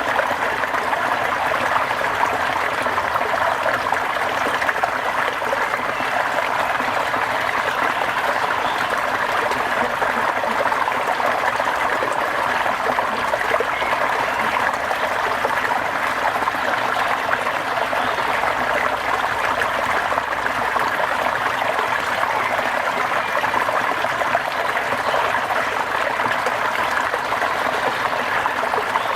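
Steady rain, a continuous even hiss with no single drops or breaks standing out.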